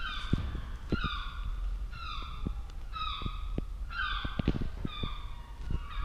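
Juvenile gull calling over and over, about once a second: six short, slightly falling calls. Light taps and scrapes sound between the calls.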